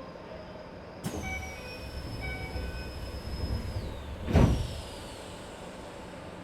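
Train doors closing at a station stop: a door chime sounds twice as the doors start to move with a high falling whine, and they shut with a heavy thud.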